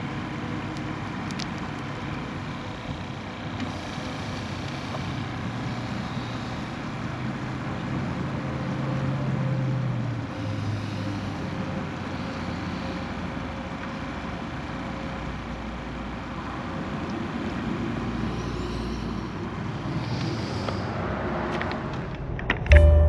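Steady road traffic on the highway bridge, with a low engine drone that swells and fades about halfway through as a heavier vehicle goes by. Music comes in abruptly near the end.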